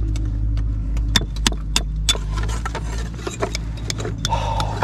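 Sharp clicks and taps of a metal hand tool working layers of shale apart, with a short rasp near the end, over a steady low engine hum.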